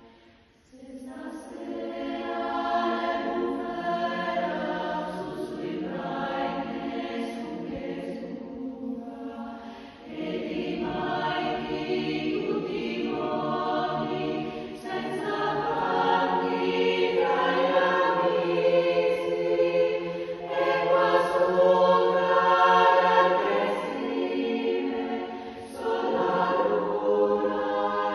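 Choir singing a sustained choral piece in long phrases. The voices enter after a brief pause about a second in, then breathe between phrases several times.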